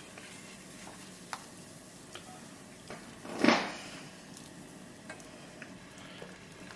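Water at a gentle boil bubbling softly in a pot, with a stainless mesh skimmer dipping and scraping as foam is skimmed off. There are a few light metal clicks and one louder swish about halfway through.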